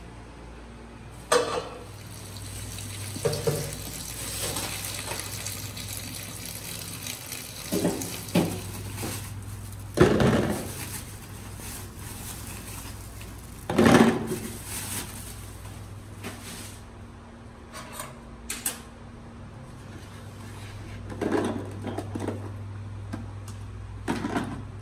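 Water running and splashing in a stainless steel kitchen sink as cooked spaghetti is drained and rinsed, with a pot and bowls knocking against the sink several times, loudest about a second in, about ten seconds in and about fourteen seconds in. A steady low hum runs underneath.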